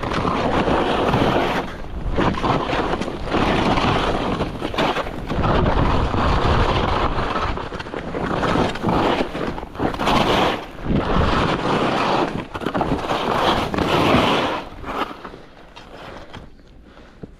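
Skis scraping and carving through firm, uneven spring snow, turn after turn, with wind rushing over the microphone. The rush swells and eases every second or two and dies down near the end as the skier slows.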